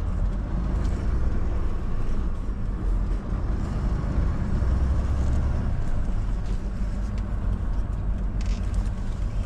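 A semi truck's engine and road noise heard from inside the cab while driving: a steady low rumble with a hiss of tyre and wind noise over it.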